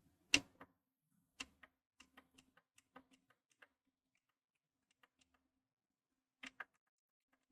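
A sharp click, then a scatter of faint ticks and a quick double click near the end: presses on the PlayStation 5's power button, with the console not starting up because it has no power.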